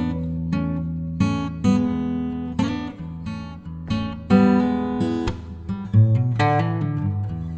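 Background music: acoustic guitar strummed and plucked, a new chord or note struck several times a second.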